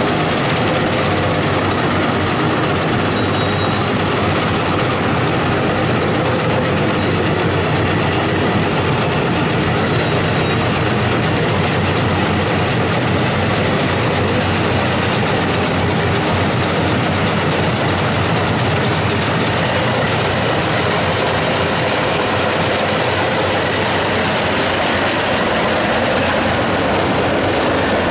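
Rice combine harvester running steadily under load, a loud, even mechanical din of engine and threshing machinery.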